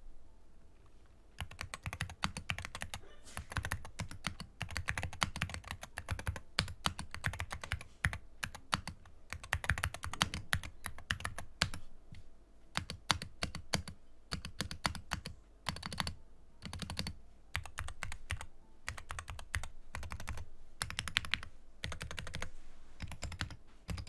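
Typing on a Wooting 60HE keyboard fitted with Gamakay Phoenix silent magnetic (Hall effect) switches: rapid key strokes in flurries with short pauses, starting about a second and a half in.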